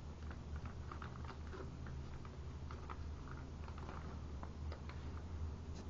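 Origami paper crinkling and rustling as hands fold and crease it, a stream of small irregular crackles over a steady low hum.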